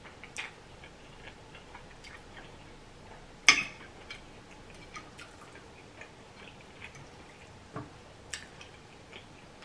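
Close-up eating sounds of a person eating ramen noodles and vegetables: soft chewing and wet mouth smacks with scattered small clicks, and one sharper click about three and a half seconds in.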